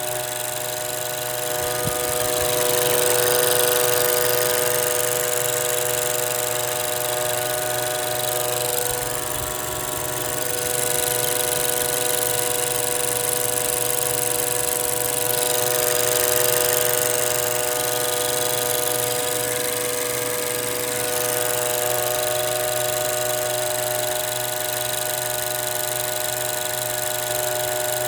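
Toyota C-HR's vacuum control valve giving a loud, steady buzzing hum, like an old air conditioner running: a common fault on the model that shows up once the car is warmed up or driven hard. The drone holds several steady pitches, a few of which fade somewhat after the middle.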